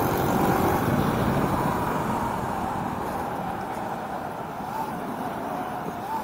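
Prototype electric go-kart at speed, heard from the driver's seat: a steady rush of wind and tyre noise on asphalt, easing off gradually, with a faint wavering whine in it.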